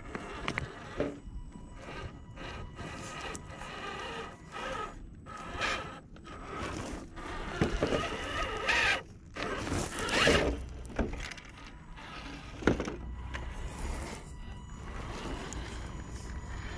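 An HPI Venture FJ Cruiser RC rock crawler climbing over loose stones: its electric motor and geartrain whine faintly while the tyres crunch and scrape on gravel and rocks, with irregular clattering and a few louder knocks partway through.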